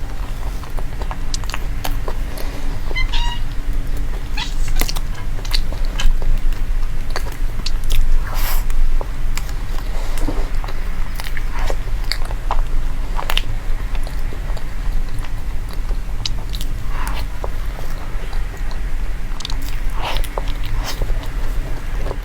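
Close-up eating: irregular crunching and chewing clicks throughout, with a brief high-pitched call about three seconds in.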